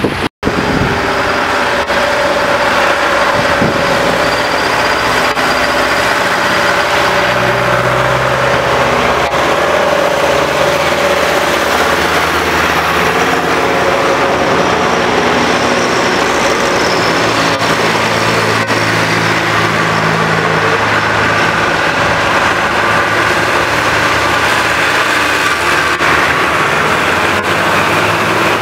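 Diesel tractor engines running as a line of tractors drives past one after another, the engine pitches shifting as each comes and goes, over a steady hiss of tyres on the wet road.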